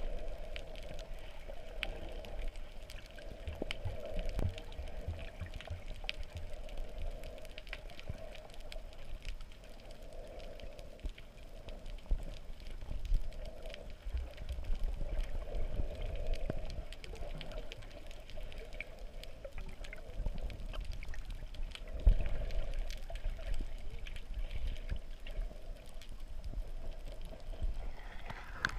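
Underwater sound heard through a GoPro's waterproof housing: a muffled, wavering wash of water movement with low rumbling and scattered faint clicks.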